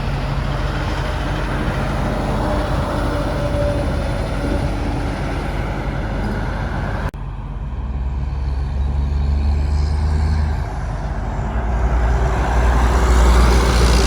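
Heavy trucks going by on a highway: a steady mix of diesel engine hum and tyre noise. After a sudden break about halfway through, another truck's low engine sound builds and grows louder near the end as it comes past.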